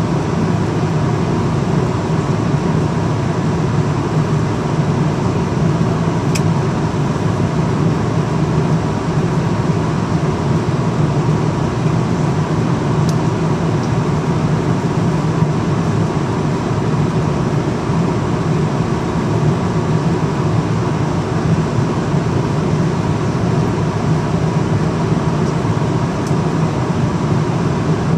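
Steady cabin noise of an Airbus A340-300 airliner at cruise altitude: a constant low rush of engine and airflow noise, with a thin steady tone above it and a few faint ticks.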